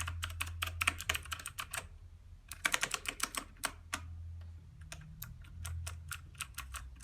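Keys of an E-Element Z-88 mechanical keyboard with Outemu switches being pressed: two quick flurries of keystrokes in the first four seconds, then single key presses spaced out, over a steady low hum.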